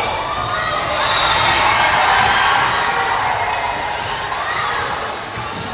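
Basketball game in a gym: a ball bouncing on the court under a din of spectators' voices, which swells for a couple of seconds and then eases.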